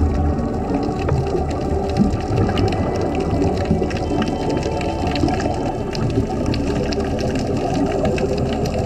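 Underwater recording of scuba divers' exhaled bubbles and regulators: a steady, muffled bubbling rumble with scattered faint clicks.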